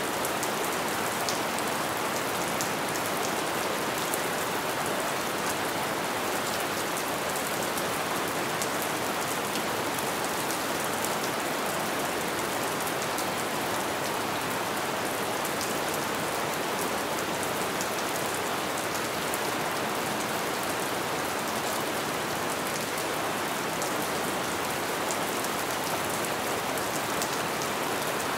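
Steady light rain falling: an even, unchanging hiss with many small, crisp drop ticks scattered through it.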